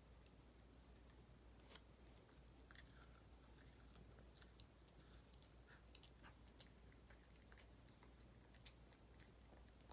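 A small dog chewing a snack: faint, irregular crunching clicks, with a few sharper ones in the second half.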